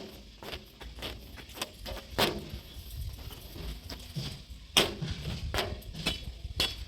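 Backhoe loader at work: sharp, irregularly spaced knocks and clanks over a low, steady engine rumble, the loudest knock a little before the end.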